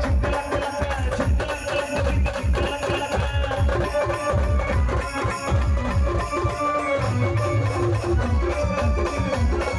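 Folk band music: a fast, steady drum beat under a repeating melody line.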